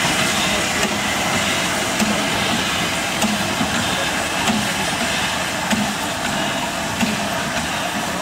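LNER N7 0-6-2 tank engine moving off slowly with its cylinder drain cocks open: a steady hiss of escaping steam with slow exhaust chuffs about once a second.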